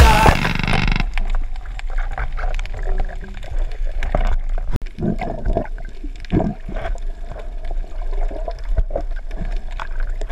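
Muffled underwater sound picked up by a camera in its waterproof housing: a low water rush with irregular dull knocks and gurgles as the diver swims. Loud music cuts off about a second in.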